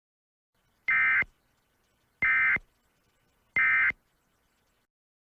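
Three short bursts of EAS SAME digital data tones, the warbling end-of-message (EOM) code that closes an Emergency Alert System message. Each burst lasts about a third of a second, and they come about a second and a third apart.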